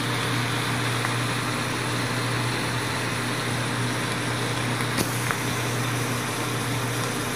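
Steady low hum under an even hiss, with a faint tick about a second in and a sharper click about five seconds in.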